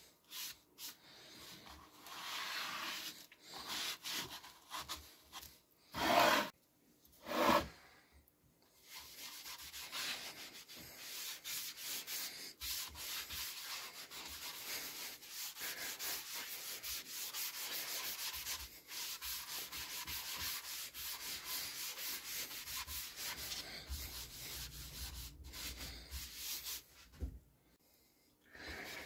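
A sponge rubbing a liquid finish over MDF boards in quick back-and-forth strokes. Two short, louder rubs come about six and seven seconds in.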